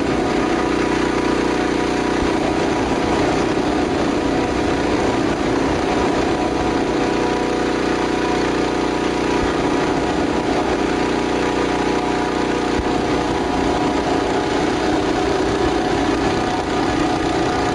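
Recorded vehicle-engine sound effect: a steady, dense engine drone with many held tones that starts suddenly and cuts off suddenly at the end.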